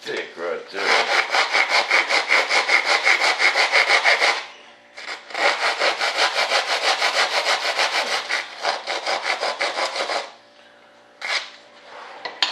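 Rapid, even back-and-forth scraping strokes on wood, like hand sanding or sawing, in two long runs with a pause of about a second between them. A short knock follows near the end.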